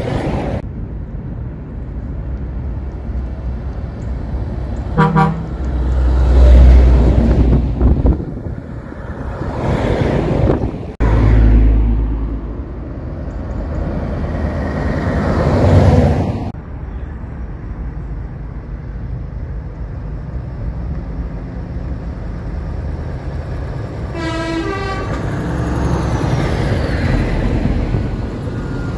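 Heavy show trucks, Scania tractor units among them, driving past one after another; their diesel engines and tyres are loudest in several passes during the first sixteen seconds. An air horn sounds briefly about five seconds in, and again in a longer blast around twenty-four seconds in.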